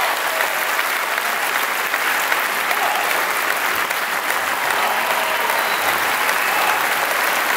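A large audience applauding steadily at the end of a dance performance, a dense, even clatter of many hands clapping.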